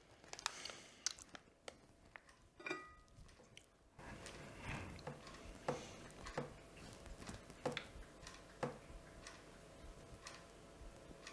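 Quiet room with sparse, light ticks and clicks. A low hiss comes up suddenly about four seconds in, and the ticks then fall roughly once a second.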